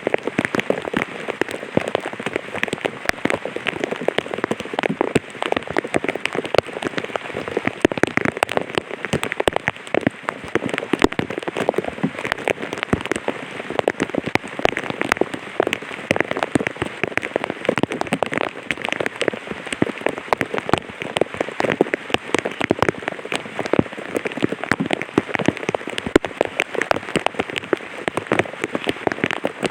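Light rain falling on an umbrella, a steady, dense patter of many separate drops.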